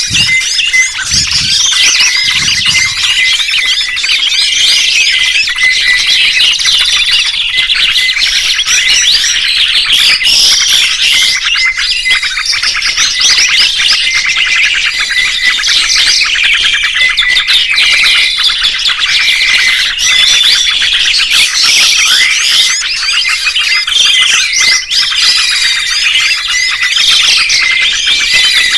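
Many small songbirds chirping and singing over one another in a dense chorus of short chirps and trills, with no break.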